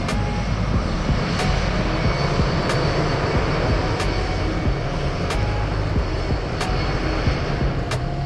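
Jet engines of a Delta Boeing 757 running with a steady, loud rumble and rush as the airliner rolls along the runway. A faint tick comes about every second and a quarter.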